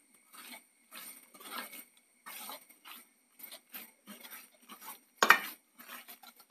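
A hand squeezing and rubbing fish pieces into a thick masala paste in a non-stick pan: a run of short, squishy rubbing sounds about two a second, with one sharper, louder knock against the pan about five seconds in.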